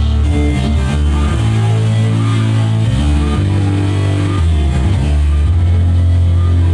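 Rock music with electric guitar and heavy bass played loud through a Sony LBT XB8AVK party speaker system. Deep bass notes are held for a second or so at a time, changing pitch.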